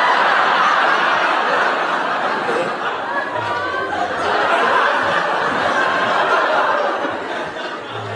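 Studio audience laughing, a loud and sustained crowd laugh.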